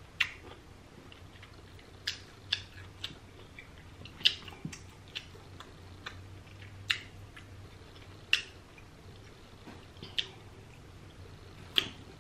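Close-miked mouth sounds of someone eating seafood boil: chewing with sharp, wet lip smacks about once a second, at irregular intervals.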